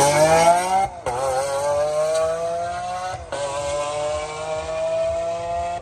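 Lamborghini Aventador's V12 accelerating hard, the engine note climbing steadily in each gear. It cuts out sharply at two upshifts, about a second in and just past three seconds in, and drops in pitch each time before climbing again.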